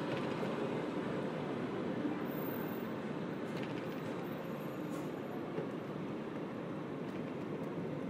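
Quiet daytime ambience of a film studio backlot: a steady, even hum and rumble, with a few faint ticks about halfway through.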